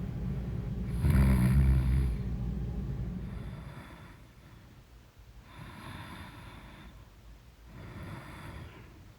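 A person snoring: one loud, deep snore about a second in, then softer snoring breaths roughly every two seconds.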